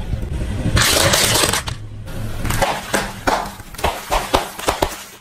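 Car tyre rolling over sealed bags of corn-puff snacks, crushing them. A loud burst of noise comes about a second in, then a run of sharp, irregular crackling and crunching.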